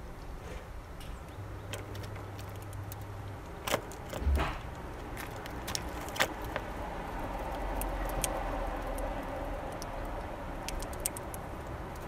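Sharp little clicks and taps of a male Eurasian bullfinch pecking and husking sunflower seeds in a feeder tray, with two louder knocks about four seconds in. A passing vehicle's hum swells in the background in the second half.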